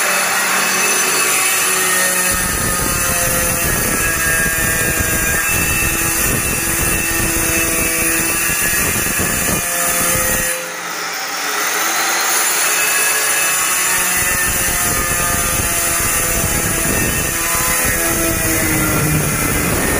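Handheld electric tile cutter with a diamond blade running loud and steady, its motor whining as the blade grinds through a ceramic floor tile. The sound dips briefly about ten seconds in, then carries on.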